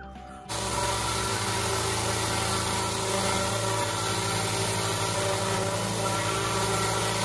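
Pressure washer (rated to 2700 psi) running and blasting water onto timber decking: a loud, steady hiss of spray over the even hum of its motor, starting abruptly about half a second in.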